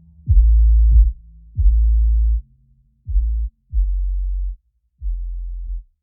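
Electronic background music with no voice: a run of five deep, booming bass notes, each starting with a quick drop in pitch and held for under a second, with short gaps between them and each a little quieter than the last.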